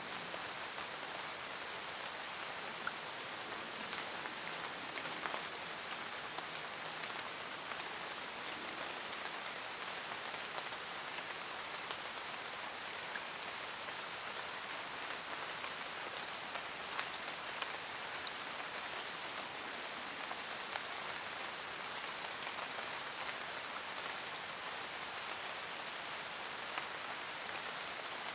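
Steady rain in a forest: an even hiss of rainfall with scattered individual drops ticking on leaves and surfaces.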